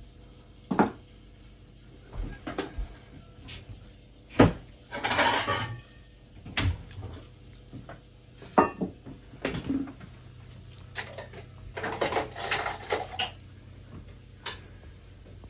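Crockery and cutlery clattering: scattered knocks and clinks of dishes being handled and an enamel bowl set down on a table. There is a longer rattle about five seconds in and a dense run of clatter a little past halfway to the end.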